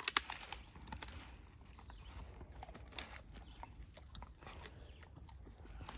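A Labrador retriever biting and tugging at a dead branch on a fallen log: scattered sharp cracks and snaps of wood, the loudest just after the start, with rustling in the dry leaves and twigs underfoot.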